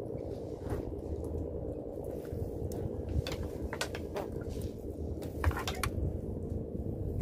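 Steady hum of a small boat's engine idling, with scattered knocks and clicks as a gill net is hauled in by hand over the boat, several knocks close together about five and a half seconds in.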